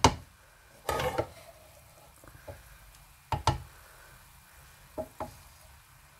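Wooden spoon stirring cooked biryani rice in a metal pot, knocking and scraping against the pot's side. There are sharp knocks right at the start, a rough scrape about a second in, another pair of knocks after about three seconds, and two lighter taps near the end.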